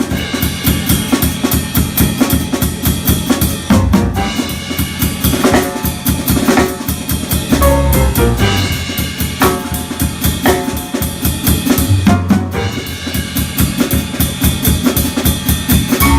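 Instrumental band music with a busy drum kit, bass drum and snare hits coming fast over held chords and a low bass line.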